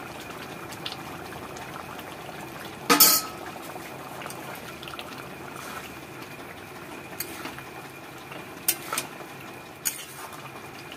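Thick curry simmering and bubbling in a metal kadai while a metal spoon stirs it, the spoon clinking against the pan a few times, loudest about three seconds in.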